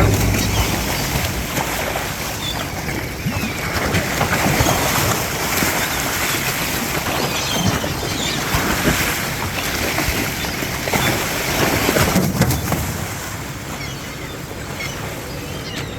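Steady wind and sea-water noise aboard a boat at sea, with wind buffeting the microphone.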